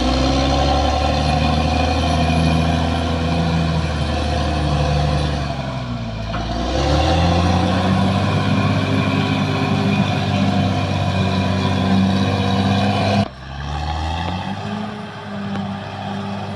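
Caterpillar D6R XL bulldozer's diesel engine running hard, its pitch sagging and then recovering about six seconds in as it takes load. About 13 seconds in the sound drops suddenly to a quieter, lower running note. A faint high whine runs above the engine.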